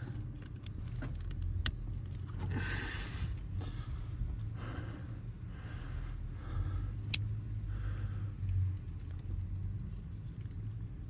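Hands working the old ignition switch and its wiring plug loose under a 1987 Ford F-150's lowered steering column: small scrapes and rustles, with a sharp click about a second and a half in and another about seven seconds in. A steady low hum runs underneath.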